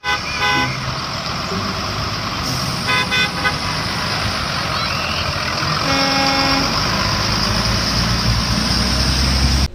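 School buses driving past on a wet road: a steady engine rumble and tyre hiss, with short horn toots three times, the longest about six seconds in.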